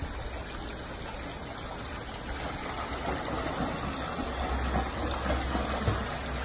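Steady rush of water from a pool's waterfall feature spilling into the pool, with a low rumble that grows stronger in the second half.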